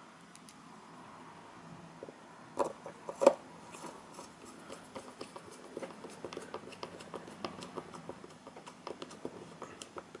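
A small screwdriver fitting and turning a tiny screw into the chassis of an N-gauge model locomotive: two sharper clicks about two and a half and three seconds in, then a run of faint small ticks.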